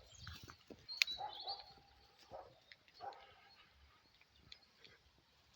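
A sharp click about a second in, followed by a held animal call of about a second and a shorter call about three seconds in.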